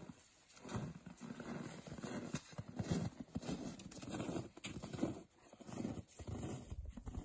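Boots crunching on packed snow in a run of uneven steps, mixed with the scrape and rustle of a long electrical cable being coiled and dragged across the snow.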